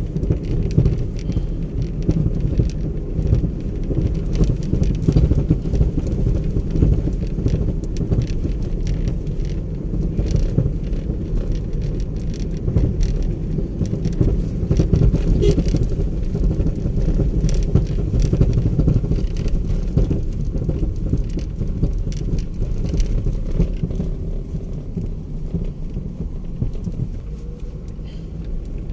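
Car driving, heard from inside: a steady low road rumble with many scattered light ticks and rattles.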